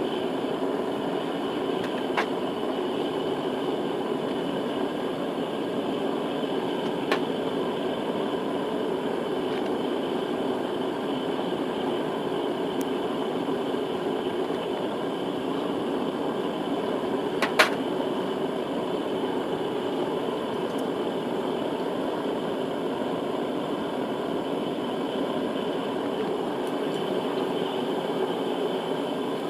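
Small metal-melting furnace running with a steady, even noise while the cans melt. A few short sharp clicks come through it, the loudest about two-thirds of the way in.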